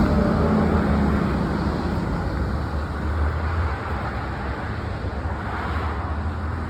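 Steady low rumble of a motor vehicle, with a humming tone that fades out about two seconds in.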